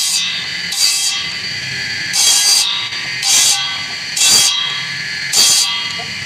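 Electric motor spinning an abrasive disc with a steady whine, while bamboo is pressed against the disc six times in short, harsh grinding rasps about once a second.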